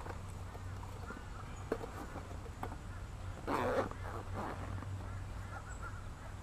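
Gear being handled and stuffed into a nylon backpack: rustling with a few light knocks, and a louder rustle about three and a half seconds in, over a steady low hum.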